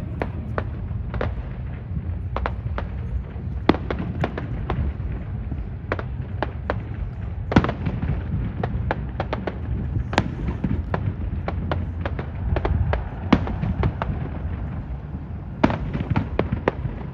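Fireworks going off: a continuous low rumble of bursts with many sharp cracks and pops through it, clustering near the end.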